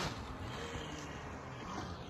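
A snowmobile engine fading as the sled rides away along the trail, its note dropping a little.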